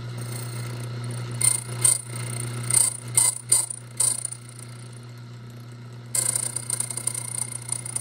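HPC Code-A-Key 1200 key machine clicking and ratcheting over its steady hum as its carriage and depth settings are indexed for the key's cuts. About six seconds in, a louder, rougher noise starts as it cuts the brass key blank.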